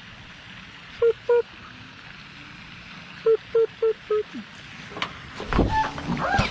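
A person's mouth-made sound effects: two short pitched 'boop' pips about a second in, then four quick ones a little after three seconds. Near the end comes a louder swooping vocal effect over a deep thump.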